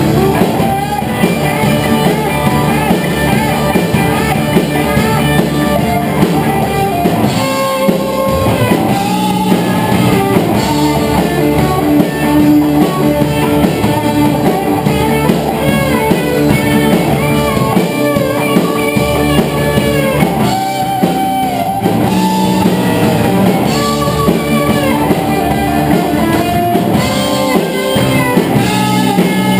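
Live rock-style worship band playing, with electric guitars over a drum kit.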